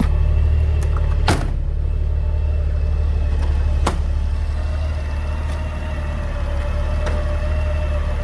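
Honda Goldwing GL1800's flat-six engine idling steadily and smoothly, with two sharp clicks, one about a second in and another about four seconds in.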